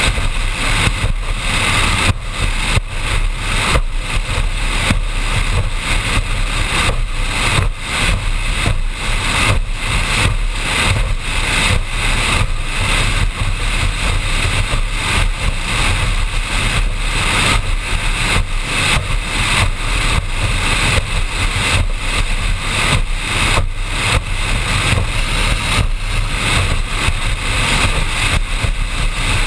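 High-performance powerboat running at speed on open water: a steady, loud engine drone mixed with wind buffeting the deck-mounted microphone and water rushing along the hull.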